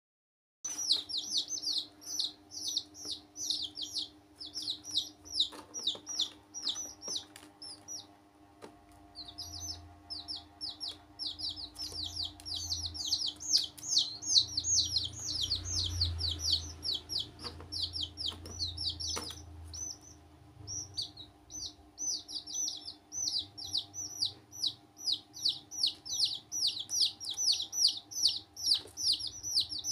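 Baby chicks peeping almost without pause: a quick run of short, high, falling cheeps, several a second, with a brief lull about eight seconds in. A low hum sits underneath through the middle stretch.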